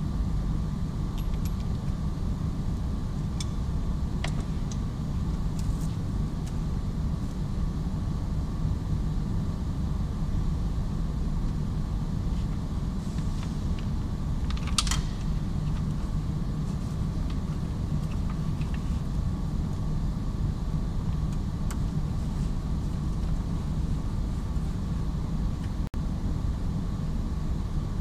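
Steady low background rumble with a faint steady hum, overlaid by a few light clicks and knocks of plastic interior trim and clips being handled, the sharpest about halfway through.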